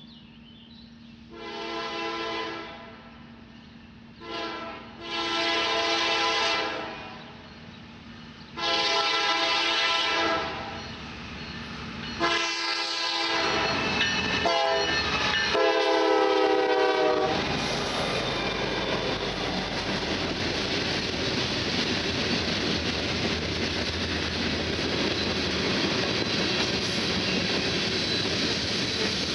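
Diesel freight locomotive air horn sounding a series of blasts as the train approaches: a long one, a short blip, two more long ones and a final blast held about five seconds as the locomotives pass. Then a steady rumble and clatter of freight car wheels on the rails as the tank cars roll by.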